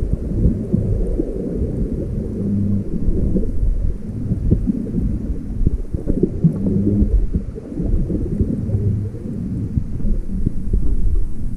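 Underwater sound picked up by a camera held below the sea surface: a muffled, low rumbling of moving water, full of small crackles, with a few brief low hums.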